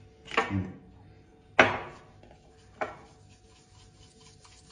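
A few sharp knocks of hard objects on a ceramic bowl or countertop in a kitchen: a softer thud near the start, the loudest knock about one and a half seconds in, and a lighter tap near three seconds.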